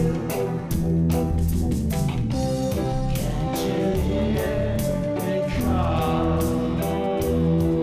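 Band soundtrack music with a fast, steady drum beat over sustained chords.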